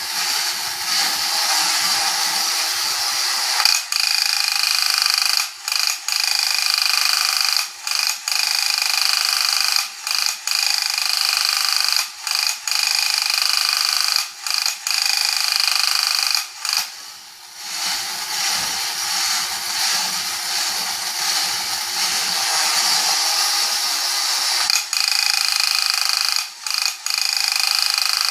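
Battery-operated Horikawa Mr Hustler tin robot's electric motor and gears whirring steadily as it walks, with the sound cutting out briefly every second or two.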